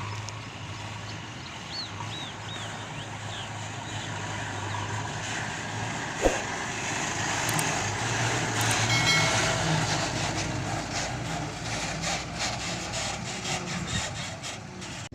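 Heavy diesel construction machinery engine running steadily, with one sharp knock about six seconds in.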